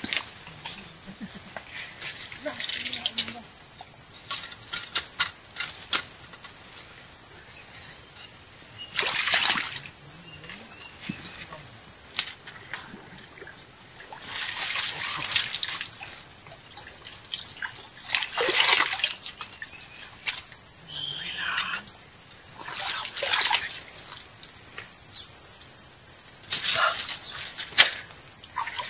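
A hooked fish splashing at the water's surface several times as it is pulled in and landed by hand. Under it runs a loud, steady, high-pitched drone of insects.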